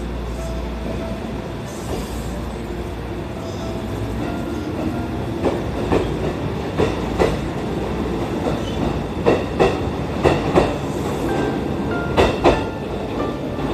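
JR West 221 series electric train pulling out of the station and gathering speed. Under a steady low rumble, its wheels start clacking over the rail joints about five seconds in, in pairs that come faster as it speeds up.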